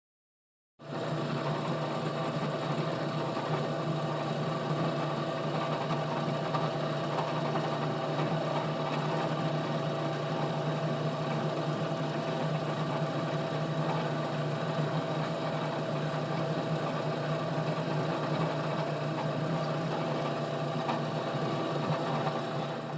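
A small electric motor-driven tool running at a steady speed with a constant hum and whine, starting abruptly about a second in and cutting off at the end.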